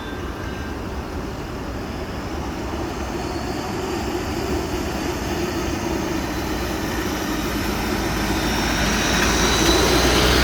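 A vehicle engine running as it drives through floodwater, growing gradually louder toward the end.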